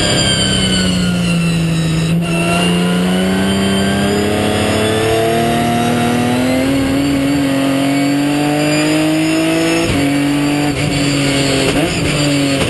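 Onboard sound of a Ginetta G50 race car's Ford 3.5-litre V6 under way: the revs drop for about two seconds, then climb steadily under acceleration, with a gear change about ten seconds in.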